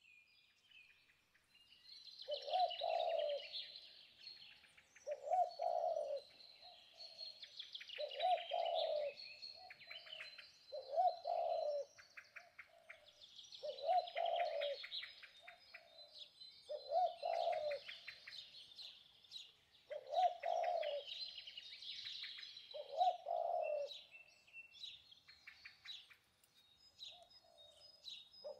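Birdsong: a dove cooing in short phrases about every three seconds, over steady high twittering and chirping of small birds.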